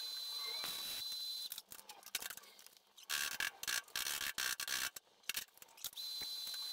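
Welding on an exhaust pipe: a steady hiss that breaks into short, choppy bursts with gaps from about a second and a half in until about six seconds in, then runs steady again.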